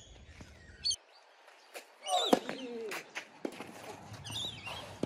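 Tennis ball struck by a racket during a rally, a few sharp knocks, the loudest a little past two seconds in. Birds chirp in the background.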